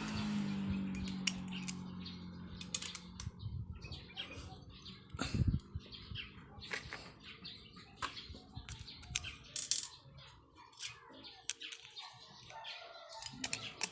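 Scattered light clicks and taps at an irregular pace, as of small engine parts and hand tools being handled during work on a Bajaj CT100 engine's magneto side, with birds chirping in the background.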